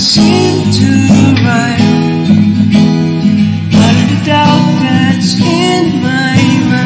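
Acoustic guitar strummed, playing chords.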